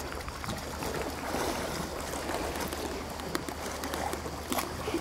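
Sea water washing and lapping at the shore as a steady wash, with a few faint clicks scattered through it.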